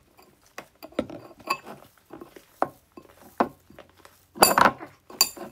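Fluffy shaving-cream slime squished and pulled by hand in a ceramic bowl, with sticky squelching clicks, and a metal spoon clinking against the bowl. The clicks come scattered, then bunch together louder near the end.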